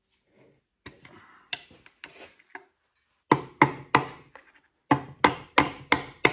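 Sharp metal-on-metal tool strikes in two quick runs of four and five blows, about three a second, driving out the stuck input shaft of an NV4500 five-speed transmission. Lighter clinks and scraping of tools come about a second in, before the blows.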